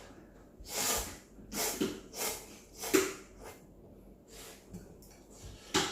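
Instant ramyeon noodles slurped from the bowl several times in quick succession: short airy sucking rushes, with a sharper one near the end.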